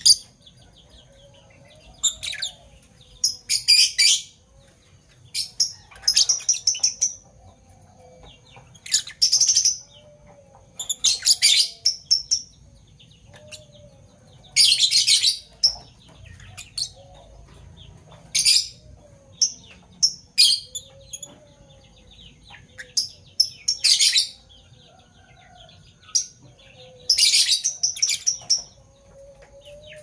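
Fischer's lovebirds giving shrill, high-pitched chirps in short rapid clusters, a burst every second or two with brief pauses between.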